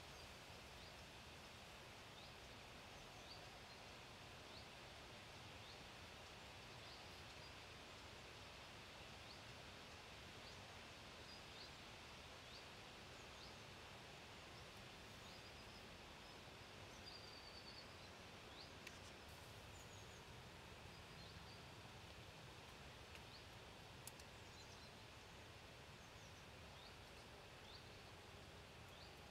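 Near silence: faint steady outdoor background hiss with scattered faint, short, high bird chirps and a couple of small clicks.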